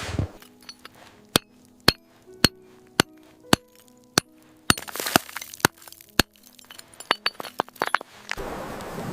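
A series of sharp, glassy clinks, about two a second, over faint sustained low tones. Steady wind comes in near the end.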